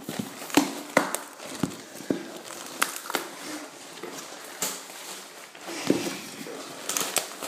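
Cardboard package being opened by hand: irregular crinkling of packing newspaper and tape, with scattered sharp clicks and knocks.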